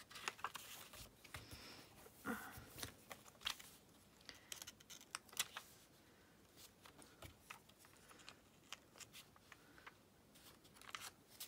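Faint, irregular small clicks and light rustles of paper handling: glue dots being lifted off their backing sheet with a pointed tool and pressed onto vellum and card.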